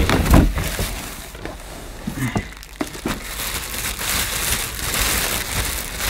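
Clear plastic bag crinkling and rustling as it is handled and pulled open, with a low bump near the start.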